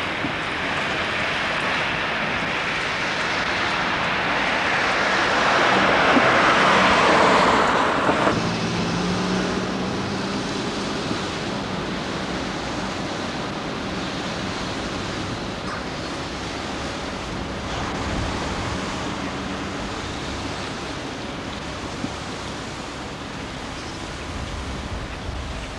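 Street traffic noise: a vehicle passes close, growing louder over the first seven seconds or so and cutting off suddenly. A steady rushing hiss of outdoor ambience follows, with a faint low hum.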